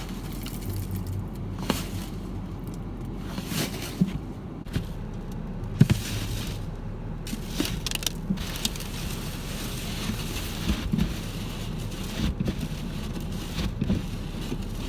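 Snow being cleared off a car: irregular brushing and scraping with scattered knocks and crunches of powdery and iced snow against the car body.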